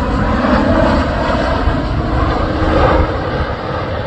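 Twin-engine jet passing overhead on approach with its landing gear down, its turbofans making a steady rushing roar with a deep rumble underneath, swelling slightly about three seconds in.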